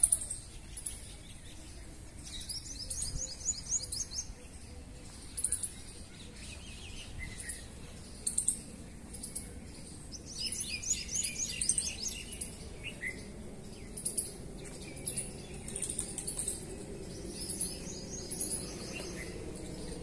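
Small birds chirping in the trees: sharp high chirps throughout, with rapid trilled runs of notes about two seconds in, around ten seconds in, and again near the end.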